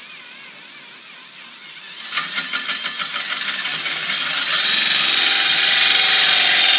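Cordless drill driving a large hole saw into a sailboat's fibreglass transom to cut the hole for a wind-vane tube. A faint wavering whine at first, then about two seconds in the teeth bite and a loud chattering cut begins, growing steadily louder.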